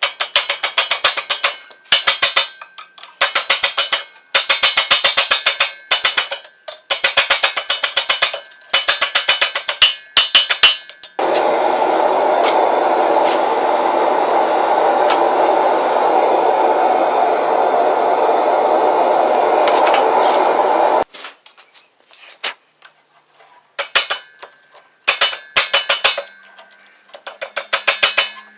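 Blacksmith's hammer striking hot mild steel round bar on an anvil in quick runs of blows with short pauses between them. Partway through, a steady rushing noise starts and cuts off abruptly after about ten seconds, and then the hammer comes back with sparser single blows.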